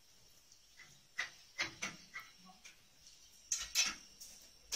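Scattered sharp clicks and knocks as the metal rods, brackets and mast of a wall plastering machine are handled and fitted, a cluster about a second in and another near the end; the machine itself is not running.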